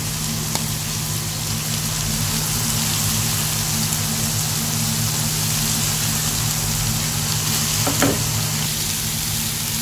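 Chicken and vegetables stir-frying in oil in a non-stick pan on full heat: a steady sizzling hiss.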